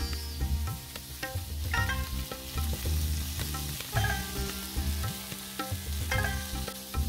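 Sardines sizzling as they fry in a nonstick pan, with a spatula turning and breaking them against the pan, over background music.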